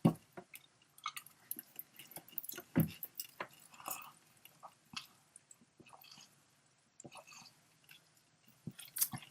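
A person chewing crunchy cashews close to the microphone: scattered small crunches and mouth clicks, the loudest right at the start and about three seconds in, then a quiet spell before a few more clicks near the end.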